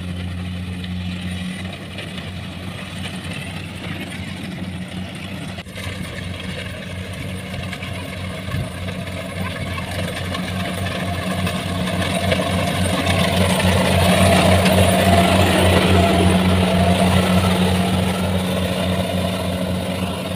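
Diesel engine of a rice combine harvester running under load while cutting rice: a steady drone with a fast pulsing beat. It grows louder about twelve seconds in as the machine comes close, then eases off near the end.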